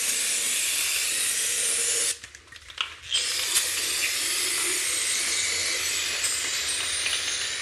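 Aerosol can of brake cleaner spraying in two long, steady hisses with a pause of about a second between them, cleaning old RTV sealant residue off the oil pan mating surface.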